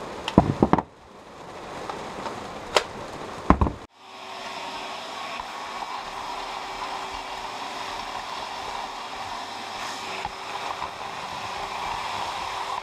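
Plastic clicks and knocks of a Metabo cordless drill's battery pack being handled and swapped, over a steady hiss of heavy rain. After a cut about four seconds in, a vacuum cleaner runs steadily with a constant hum as its nozzle sucks sawdust off freshly drilled plywood.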